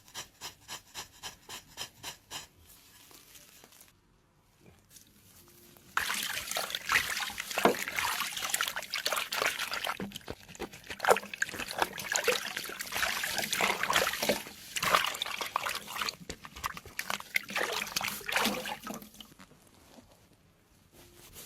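Quick, even scraping strokes of a pedicure blade on thickened foot skin, about four a second, stopping a couple of seconds in. After a pause, a longer and louder stretch of irregular crackling and splashing noise takes over and dies away near the end.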